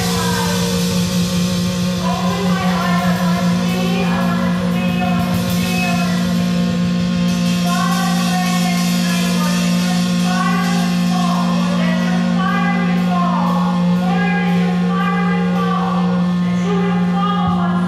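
Background music: a song with a sung vocal line over a steady low drone.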